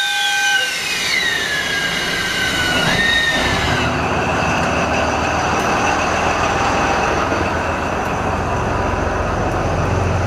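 Freight train behind a KD55 diesel locomotive rolling along the track. High wheel squeal glides down in pitch over the first few seconds. A steady rumble of the wheels and locomotive follows, growing deeper and stronger near the end.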